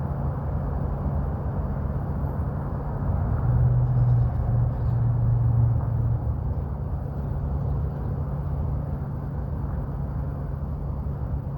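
Steady low mechanical hum with a rumble underneath, swelling louder for a couple of seconds about four seconds in.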